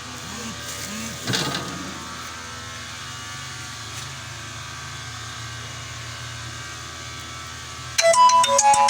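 PEL inverter refrigerator compressor running with a steady low hum, with a brief rustle a little over a second in. Loud music with a ringing tune starts near the end.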